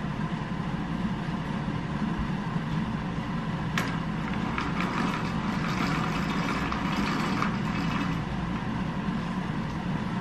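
Steady low rumble of city traffic. A click comes about four seconds in, followed by a few seconds of rattling as a roller blind is pulled up by its cord.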